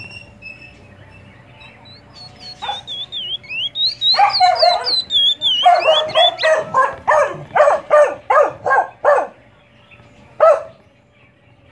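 A young curió (chestnut-bellied seed finch) whistling a quick run of high notes that glide up and down, while a dog barks over it, about two to three barks a second, stopping about nine seconds in, with one more bark near the end.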